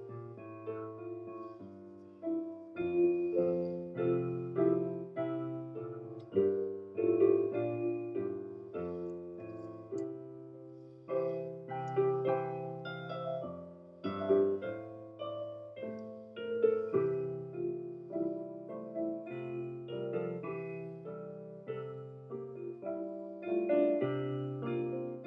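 Solo piano playing a slow instrumental piece of chords and melody, each note struck and left to fade.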